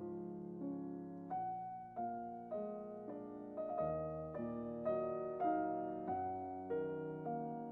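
Background piano music: slow chords struck about once or twice a second, each note fading as it rings.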